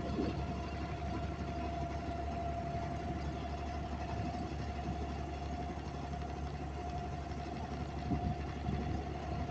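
Wooden abra water taxi's inboard diesel engine running steadily under way: a constant low drone with a steady whine above it.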